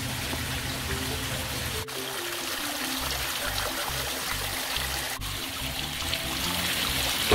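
Water trickling and splashing as a small garden pond waterfall spills over rock ledges into the pool, under background music with slow-changing bass notes.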